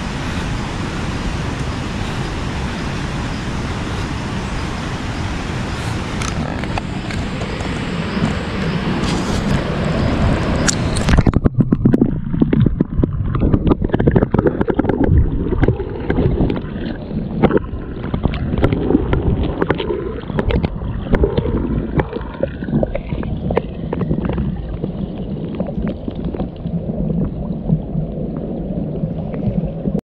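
Steady rush of river water. About eleven seconds in it suddenly turns muffled, as the microphone goes under the water, and becomes a low gurgling with many small knocks and taps.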